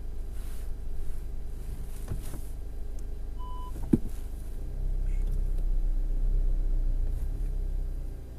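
Car driving: steady engine and road rumble, growing louder from about five seconds in. A short electronic beep about three and a half seconds in, followed by a brief knock.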